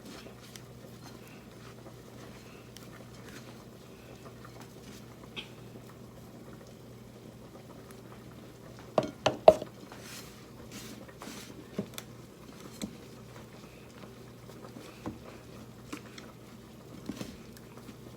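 Dumpling dough of flour and water being mixed and worked in a bowl: soft, irregular pattering and small ticks over a steady low hum. A quick cluster of sharp knocks comes about nine seconds in, the loudest sound.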